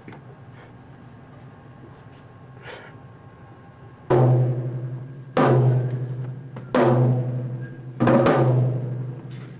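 A drum is struck four times at an even pace about a second and a half apart, each low, booming hit ringing out, as in a drum soundcheck. The hits start about four seconds in, after low room noise.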